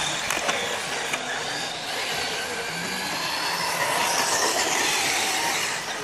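Several radio-controlled model cars racing on a dirt track: a high-pitched motor whine that rises and falls, over the hiss of tyres on the dirt.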